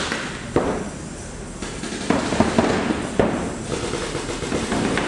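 Paintball markers firing in irregular sharp pops, with a quick cluster of shots between about two and three seconds in.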